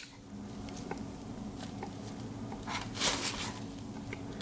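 Small handling clicks from a Victorinox Swiss Army knife being turned over in the hands, with a brief rustle about three seconds in, over a steady low hum.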